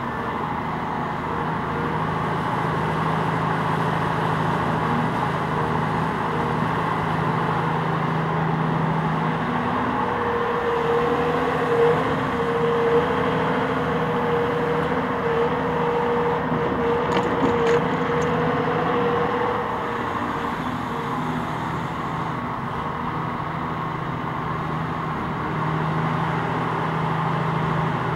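Cat 374F excavator's diesel engine running steadily as the machine digs and swings. A steady higher whine joins in about ten seconds in and fades out about twenty seconds in, and a few short knocks come around the middle as the bucket dumps earth into the tipper truck's bed.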